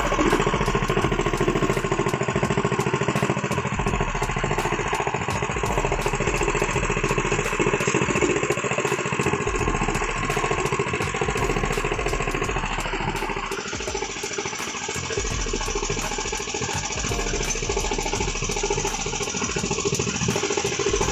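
Small stationary engine running steadily, driving a sugarcane juice press through a V-belt, with a change in its tone about two thirds of the way through.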